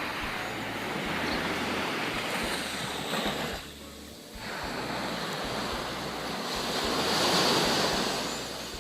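Sea surf washing onto a beach in two surges, with a short lull about three and a half seconds in. Low wind rumble on the microphone underneath.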